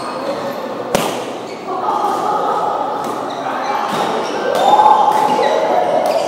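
Badminton rally: sharp racket-on-shuttlecock hits, the loudest about a second in and several lighter ones after, echoing in a large hall. Voices and court noise carry on underneath.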